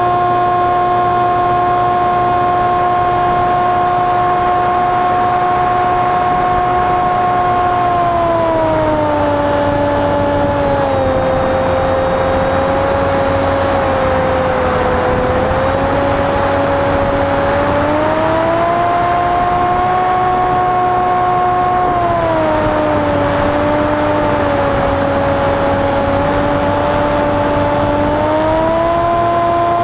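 Model airplane's motor and propeller heard from its onboard camera, a loud steady drone whose pitch drops about a third of the way in, rises again past the middle, drops once more and climbs again near the end as the throttle is worked in flight.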